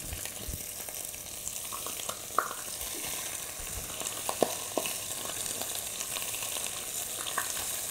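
Pieces of fish, bones and all, gently frying in oil in a saucepan: a steady sizzle with a few sharp pops, as the fish browns slowly for a fish-stew base.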